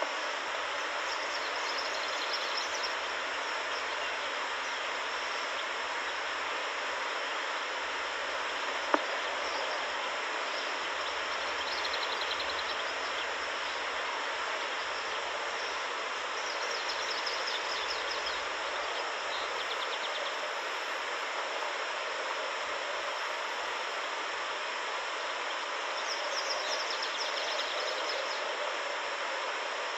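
Steady outdoor hiss, like wind on the nest camera's microphone, with faint high trills from small birds or insects a few times and one sharp click about nine seconds in.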